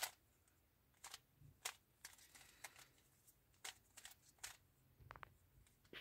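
Stickerless 3x3 speed cube being turned by hand: a string of sharp plastic clicks as its layers snap round, at an uneven pace, the loudest at the very start.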